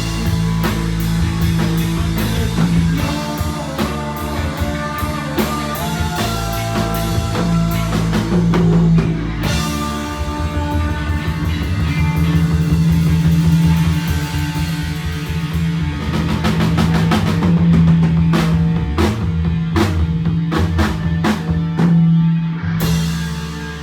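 Live rock band playing an instrumental passage on drum kit and guitar, with a steady driving beat and a loud cymbal crash near the end as the song winds down.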